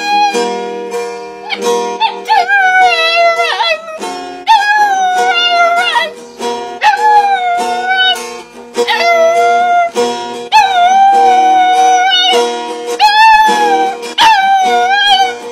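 A dog howling along to a strummed acoustic guitar: a string of long, wavering howls, one after another, over the ringing chords.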